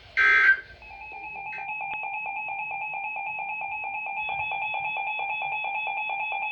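A short loud burst of tone, then a weather alert radio's electronic alarm beeping rapidly, fading in over about a second and then holding steady. It marks the arrival of a new warning.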